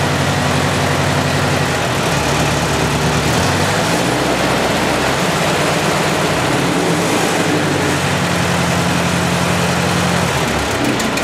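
Ford 8N-style tractor's four-cylinder gasoline engine running steadily on a freshly rebuilt and tuned Marvel Schebler carburetor, with its speed shifting slightly a few times. It runs smoothly, judged to sound good.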